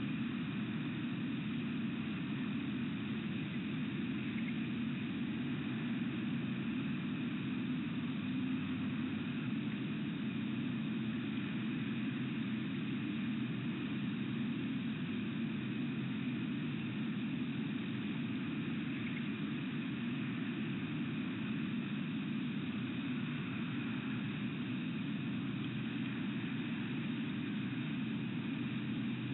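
Steady low rumble of outdoor background noise with a faint higher hiss, unchanging throughout.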